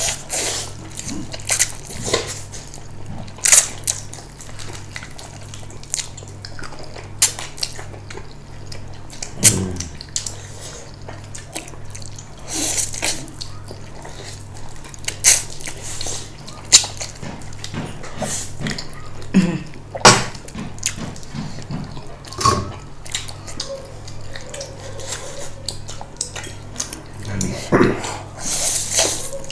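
Eating close to the microphone: scattered clicks of chopsticks and utensils against bowls and plates, with short slurps and chewing of noodles.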